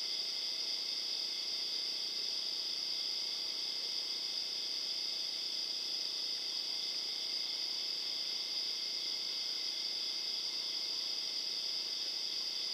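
A steady, high-pitched night chorus of insects such as crickets or katydids, holding at an even level without a break.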